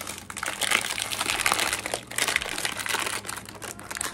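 Plastic cookie sleeve of Oreo Thins crinkling and rustling as it is pulled out of its cardboard box and handled, with irregular crackles throughout.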